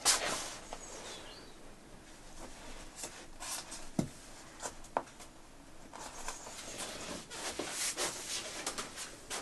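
Cotton quilt rustling and brushing as it is handled and smoothed flat against a wall board, with scattered small taps and clicks of hands on the board.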